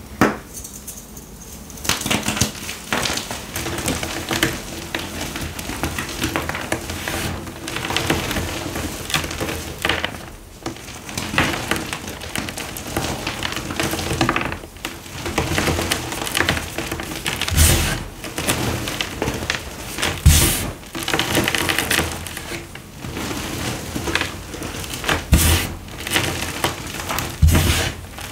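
Hands crushing and crumbling blocks of blue-dyed reformed gym chalk, a dense run of crunching and crackling as the chalk breaks into chunks and powder. Several louder cracks come in the second half.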